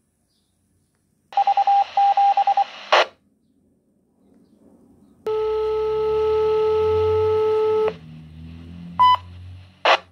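Baofeng BF-F8HP Pro handheld radio's speaker sounding dispatch alert tones picked up while scanning: a rapid pulsed beeping tone for about a second and a half that ends in a squelch-tail crackle, then, after a pause, a single steady tone held for about two and a half seconds. Two short squelch bursts follow near the end.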